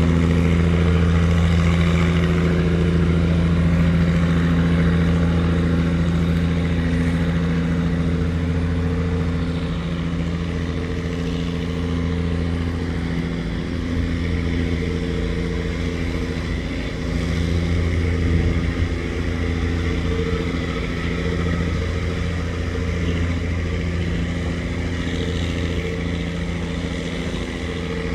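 Wooden river tugboat's diesel engine running steadily at a constant pitch, a deep even drone.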